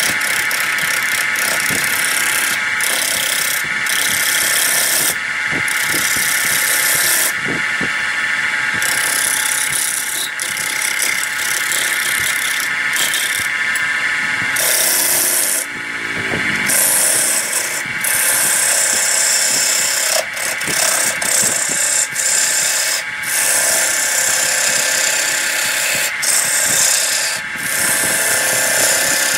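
Wood lathe running with a steady whine while a gouge cuts a spinning wooden disc. The cut is a loud hissing scrape that breaks off briefly again and again as the tool comes off the wood.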